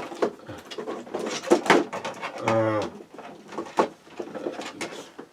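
Rummaging through a bench of parts and cables in search of a power supply: a string of clicks, knocks and light clatter. About two and a half seconds in comes a short, low hum from a person.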